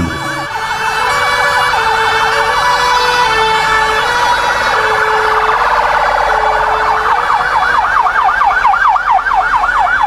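Several emergency-vehicle sirens from fire engines and the police escort sounding together, loud and overlapping. Near the end one stands out as a fast yelp, rising and falling several times a second.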